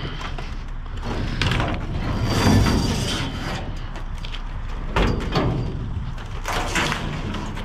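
Lengths of metal electrical conduit and wire being dragged out of a steel dumpster by hand. Several knocks and scrapes sound as the metal strikes and rubs the dumpster's edge.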